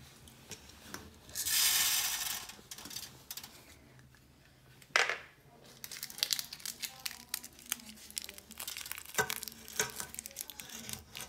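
Foil wrapper of a water softener tablet crinkling and tearing as it is unwrapped by hand: a dense run of crackles through the second half. Near the start there is a hiss of about a second as scent beads pour from a plastic cup onto the laundry in the washing machine drum, and a single sharp knock comes about halfway through.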